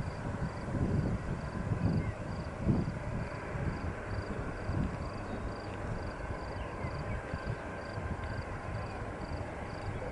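Low rumble of a distant Boeing 737-800's CFM56 jet engines at taxi power, swelling and gusting unevenly as wind buffets the microphone. An insect chirps steadily above it, about twice a second.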